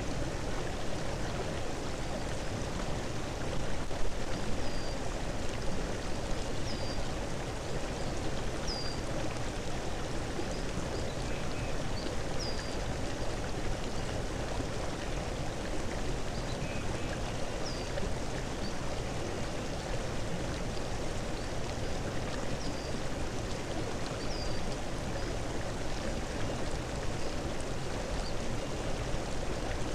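Steady rush of running water, like a stream, with short high chirps repeating every couple of seconds.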